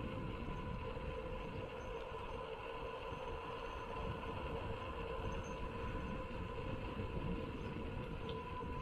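Mountain bike rolling steadily on a concrete road: a constant tyre hum over a low, fluttering rumble of wind on the microphone.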